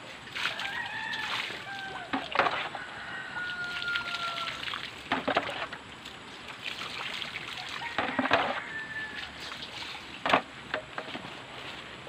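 Water poured and sloshed out of a metal basin onto muddy ground in several splashes.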